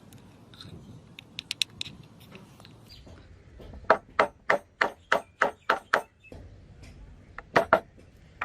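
Hammer striking work in a knife-making job: a few light taps, then a quick even run of about eight sharp blows, roughly three a second, and two more near the end.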